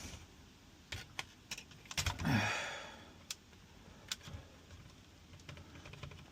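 Scattered small plastic clicks and taps as clips and parts are worked out of a car instrument cluster by hand, with a short sigh about two seconds in.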